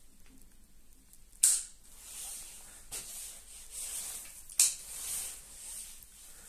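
Two sharp clicks about three seconds apart, each followed by a brief rustling hiss, with a fainter click between them.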